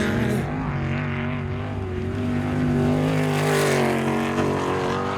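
Off-road race vehicle's engine running, its pitch wavering a little, growing somewhat louder a few seconds in.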